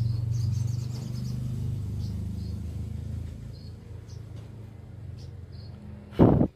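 Lovebirds giving short high chirps every second or so over a low vehicle engine hum that slowly fades away. A brief loud knock comes near the end.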